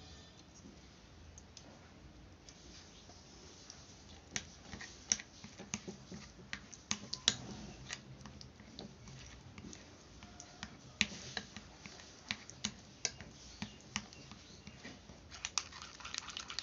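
Spoon stirring a thick paste in a small glass bowl, clicking and scraping against the glass in quick irregular taps that start about four seconds in.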